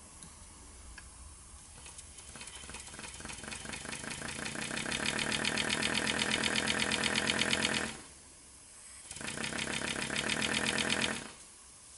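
Model five-cylinder radial engine running on compressed CO2, its rapid exhaust puffs building steadily louder and faster over several seconds as it speeds up. It drops away suddenly near eight seconds in, picks up again, and drops away once more near the end.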